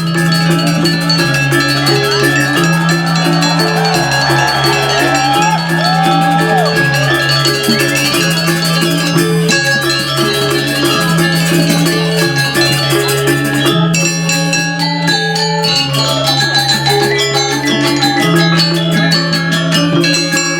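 Balinese gamelan playing dance accompaniment: bronze metallophones in fast interlocking strikes over a slow, steady alternation of two low notes.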